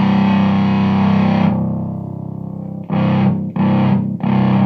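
Jazzmaster electric guitar played through a Ghost Effects Mark 1 Tone Bender-style fuzz pedal into a Hiwatt amp. A held fuzzy chord fades out in the first second and a half, then short choppy chord strums start about three seconds in.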